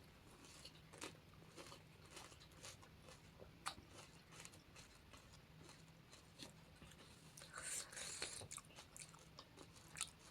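Faint close-up eating sounds: crisp panipuri shells crunching and being chewed, with scattered small clicks and a louder bout of crunching about eight seconds in.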